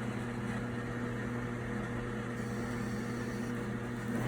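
Steady low electrical hum over a faint hiss.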